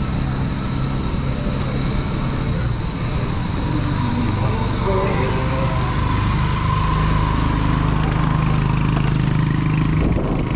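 A motor engine running steadily, with a low drone that grows a little stronger about halfway through.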